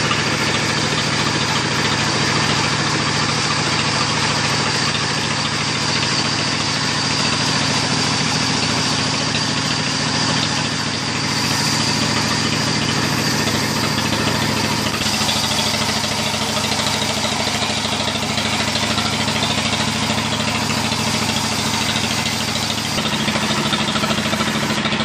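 A sawmill's log band saw and its drive running steadily: a continuous machine hum with a thin high tone above it, shifting slightly in pitch a couple of times.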